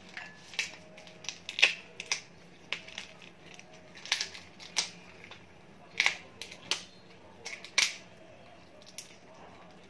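Shells of large shrimp cracking and crackling as they are peeled off by hand: irregular sharp clicks and snaps, a few of them louder.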